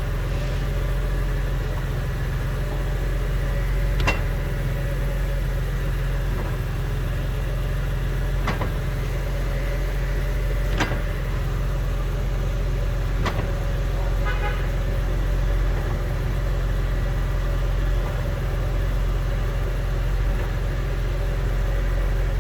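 BMW E46 M3's S54 straight-six running with a steady low hum, broken by four sharp clunks spaced a few seconds apart and a brief quick rattle soon after the last. This is the unexplained clunk that comes at the clutch engagement point and on going off and on the gas; the bushings and flex disc have been checked and found good.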